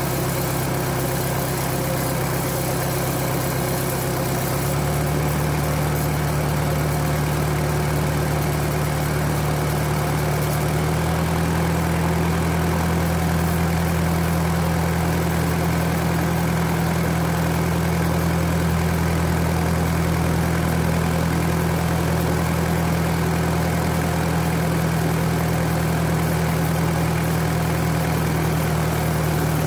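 Miniature railway locomotive's engine running steadily. Its pitch steps up about five seconds in and again about eleven seconds in, the engine revving up.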